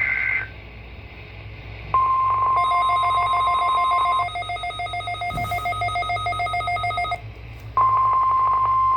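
NOAA Weather Radio Emergency Alert System tones for a tornado warning. It opens with the brief tail of the warbling SAME data burst, then the steady 1050 Hz warning alarm tone comes in about two seconds in. A second two-note tone sounds over it from about two and a half seconds in, and this is the likely glitch on the broadcast. The alarm tone drops out midway while the other tone runs on until about seven seconds in, and after a short gap the alarm tone resumes.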